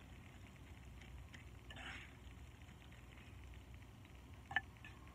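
Instant noodles being stirred with seasoning in a bowl, heard faintly: a soft rustle about two seconds in and one sharp click near the end, over a low room hum.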